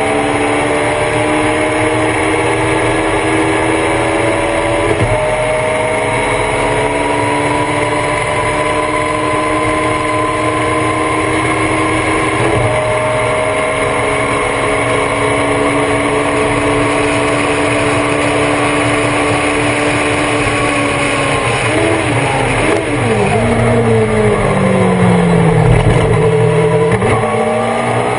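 Thunder Roadster race car's engine heard on board at racing speed. It climbs in pitch with quick drops at two upshifts, about 5 and 12 seconds in, then holds steady. Near the end the pitch falls with a few quick blips as it slows through downshifts, stays low and a little louder for a few seconds, then climbs again as it accelerates.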